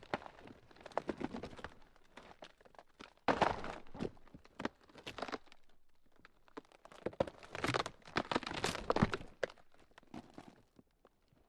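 Ground cracking: irregular crackling and crunching in clusters, with a sharp crack a little over three seconds in and a dense run of cracks between about seven and nine seconds.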